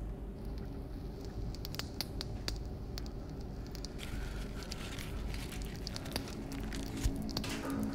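Thin wood kindling catching fire, with scattered crackles and pops that grow denser about halfway through as the flames take hold, over a low steady rumble.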